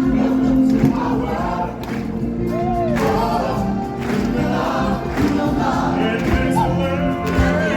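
Choir singing over the show's music, with sustained held notes and shifting vocal lines.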